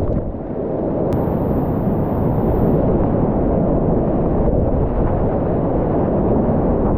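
Loud, steady rush of whitewater rapids, heavy and muffled, heard through the waterproof case of a chest-mounted camera as the kayak runs the river.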